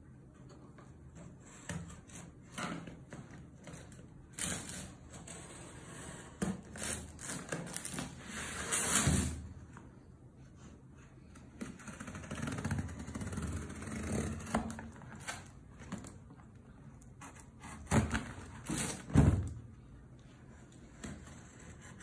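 Utility knife blade slitting packing tape and scoring a cardboard box, with scrapes and taps as the box is held and turned. There is a longer slicing stretch about nine seconds in, and two sharp sounds near the end are the loudest.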